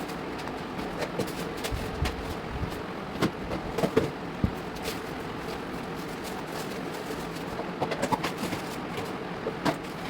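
Containers and food items being set down and shifted on fridge shelves: scattered light clicks and knocks, bunched in a few short clusters, over a steady background hum.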